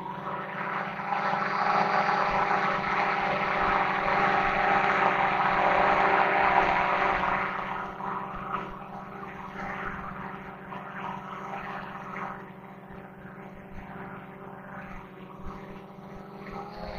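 Quadcopter drone's motors and propellers whining steadily in flight, several tones held at a constant pitch over a hiss. It is louder for the first half and quieter from about eight seconds in.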